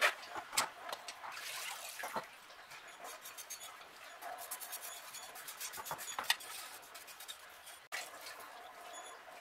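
Rochester Model B carburetor castings lifted out of a bucket of cleaning solution, with splashes and drips and clunks against the bucket, then scrubbed with a small wire brush in quick scratching strokes to loosen the sludge left after a week's soak.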